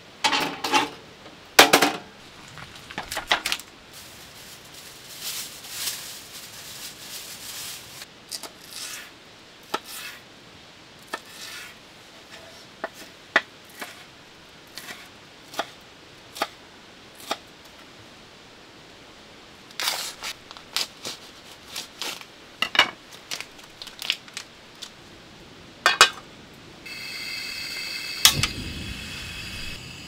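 Handling sounds of camp cooking. First come metal clunks from a portable gas heater being set down. Scattered knife taps on a wooden cutting board follow. Near the end a gas stove burner is lit and hisses steadily, with a faint high whine.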